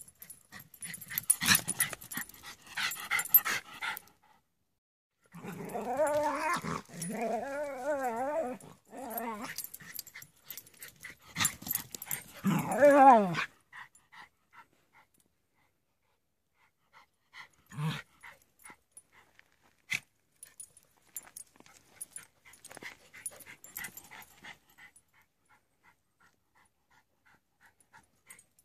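Dogs playing rough: a scuffle, then a dog's long, wavering growling vocalizations in two bouts and a louder rising-and-falling cry. After that, only light scattered paw steps and scuffs on the dirt trail, with one sharper knock.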